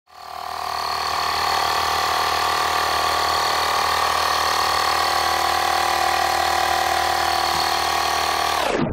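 Portable tyre compressor running steadily with a loud, even hum and hiss. It comes up over the first second and drops in pitch just before it cuts off at the end.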